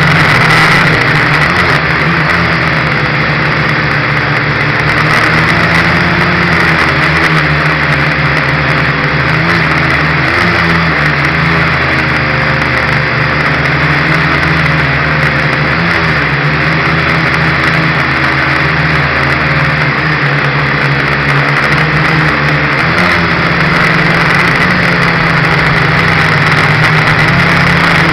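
Dromida Ominus FPV quadcopter's electric motors and propellers buzzing steadily, heard up close from its onboard camera. The pitch wavers up and down as the throttle changes.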